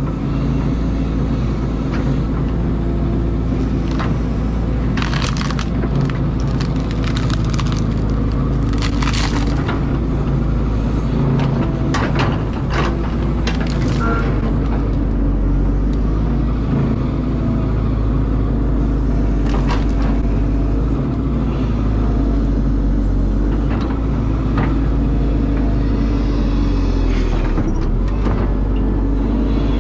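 Caterpillar excavator's diesel engine running steadily under load, with a dense run of sharp cracks and crunches in the first half and scattered ones later.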